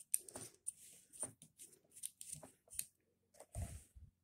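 Faint, scattered small clicks and rustles of hands handling a holster hanger's parts, fitting its cross bolts through a Picatinny-style rail slot. The loudest click comes a little before the end.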